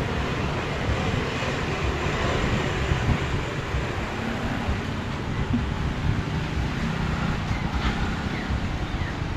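Steady low rumbling noise with no clear single source.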